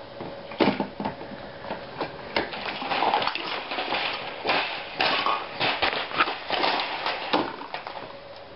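Plastic toys clattering and rustling as a toddler handles them in and around a plastic storage box: a run of irregular knocks and clicks.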